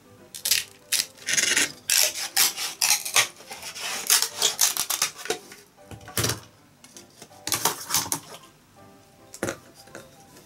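Bamboo culm being split lengthwise into thin strips with a bamboo-splitting knife: an irregular run of sharp cracks and tearing rasps that stops shortly before the end. Soft background music plays underneath.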